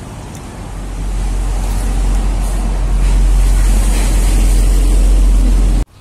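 Road traffic: a motor vehicle running close by, its low rumble growing louder over the first couple of seconds and holding, then cutting off suddenly near the end.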